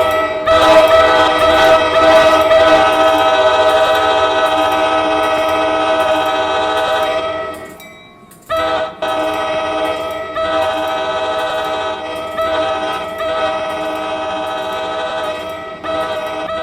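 Locomotive air horn played in a horn show: one long blast that fades out about seven seconds in, then after a short gap a run of shorter blasts separated by brief breaks.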